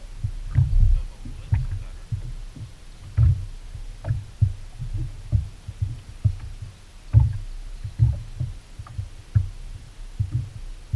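Small waves slapping against a boat's hull in irregular low thuds, two or three a second.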